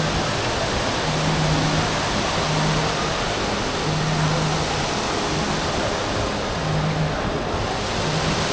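Steady rushing of water pouring down in a large indoor waterfall fountain. Beneath it, a low hum comes and goes about every second and a half.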